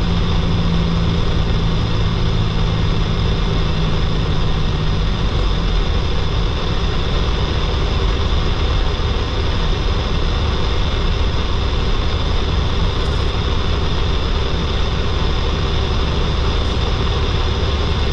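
Semi truck's diesel engine and road noise heard from inside the cab while cruising on the highway: a steady low drone with a hum of tyres and wind.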